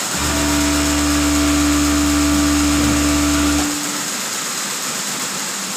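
Industrial overlock sewing machine running steadily while it edges the cuff of a knitted glove, a low, even motor hum. It stops abruptly about three and a half seconds in.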